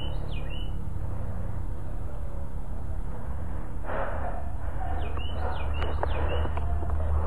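A songbird singing a short phrase of quick, sliding whistled chirps, once at the start and again about five seconds in, over a steady low rumble. From about four seconds in there is a rustle with a few sharp clicks.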